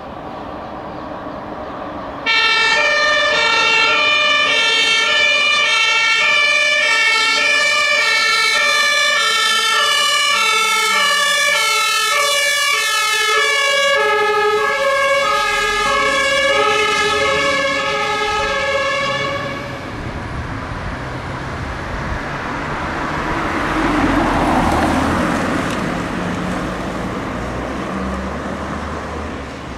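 German fire-service two-tone siren (Martinshorn) switched on about two seconds in, alternating steadily between a high and a low note, shifting down in pitch about halfway as the vehicle passes, and cutting off a few seconds later. Then the engine and tyre noise of a passing fire truck swells and fades.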